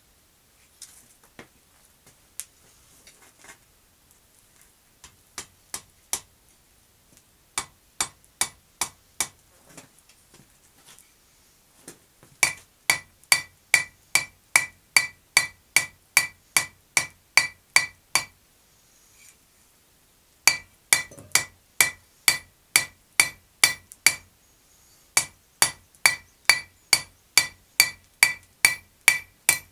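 Blacksmith's hammer forging a piece of hot steel on an anvil, each blow ringing. A few light, scattered taps come first, then steady runs of about two to three blows a second, broken by two short pauses.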